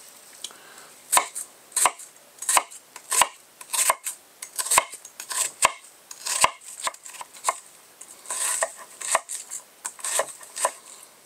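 Civivi Bullmastiff folding knife chopping an onion on a wooden cutting board: a steady run of knocks as the blade cuts through and strikes the board, about one and a half a second, then quicker, lighter cuts in the last few seconds.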